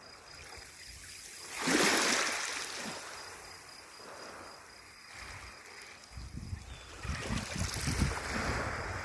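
Calm sea water washing and splashing, with one louder wash about two seconds in and uneven low rumbling from about six seconds in.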